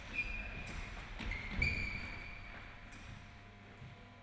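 Quiet sports-hall ambience with two short high squeaks, typical of court shoes twisting on the floor, and a few faint knocks.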